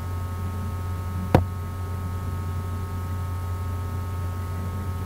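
Steady low electrical hum with several faint steady whine tones above it, and a single sharp click about a second and a half in.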